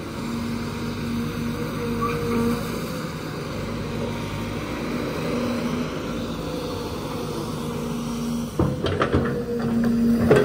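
SANY hydraulic excavator's diesel engine and hydraulic pump running under load, with a steady tone that comes and goes as the boom swings and the bucket lifts. Near the end come several sharp cracks and knocks as the bucket comes down onto the stump and roots.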